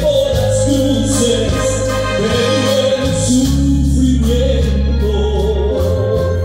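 Live music from a municipal orchestra: a steady bass line under a wavering melody, with regular cymbal strokes keeping the beat.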